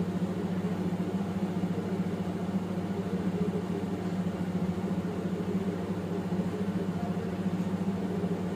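A steady low mechanical hum with a faint hiss above it, unchanging throughout.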